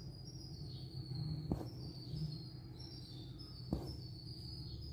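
Quiet background with a steady high-pitched whine and a low hum, broken by two faint clicks about two seconds apart.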